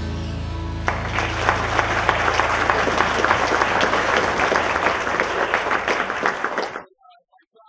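Audience applauding, starting about a second in over the tail of the intro music; applause and music cut off suddenly near the end.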